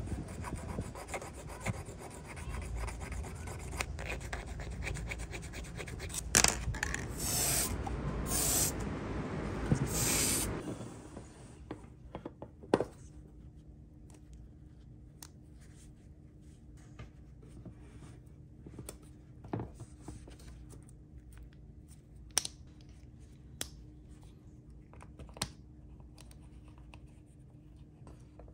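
Hand file rasping back and forth over a diecast metal part for about ten seconds, then stopping. After that only a few light, separate clicks as small metal model parts are handled.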